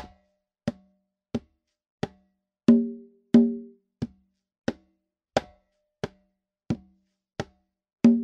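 A single conga played by hand in a slow marcha (tumbao) pattern: heel, toe, slap, toe, heel, toe, then two open tones, about one stroke every two-thirds of a second. The two open tones ring out loudest and longest, a little under three seconds in and again near the end; the heel and toe strokes are short, dry taps.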